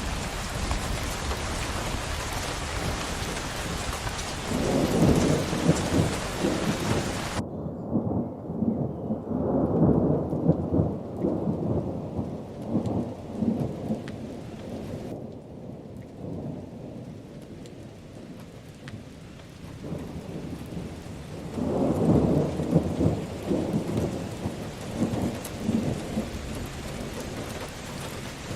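Steady rain on a roof with rolling thunder, rumbling three times: about four seconds in, around ten seconds, and again after twenty seconds. About seven seconds in the bright hiss of the rain cuts off abruptly, leaving a duller, softer rain.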